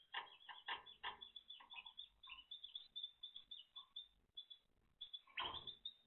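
Timbrado canary giving a quick run of short chirps and clicking notes, thinning out near the middle, with a louder burst of notes about five and a half seconds in.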